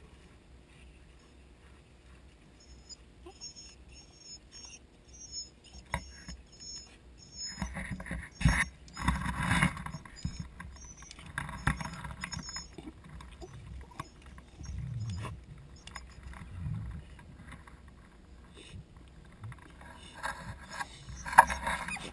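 Dachshund digging in loose soil: irregular bouts of paws scraping and flinging dirt, with a couple of sharp knocks, one about eight seconds in and one near the end.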